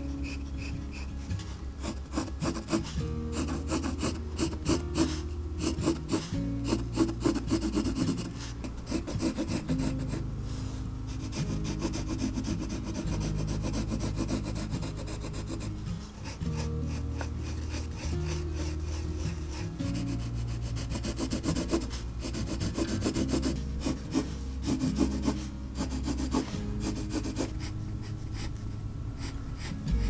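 Pencil scratching on sketchbook paper in quick, uneven strokes. Soft background music with sustained low notes runs underneath.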